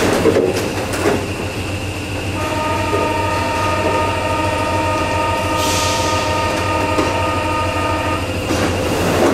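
Paris Metro train standing at the platform with its doors open, as a steady buzzing warning tone sounds for about six seconds: the door-closing signal before departure. The doors then close with a noisy clatter near the end.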